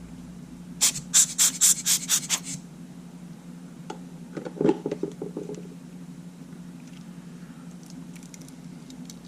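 Quick rubbing strokes on the opened camera body, about eight of them in under two seconds, as sand is cleared out of it; a few light clicks and taps follow a couple of seconds later.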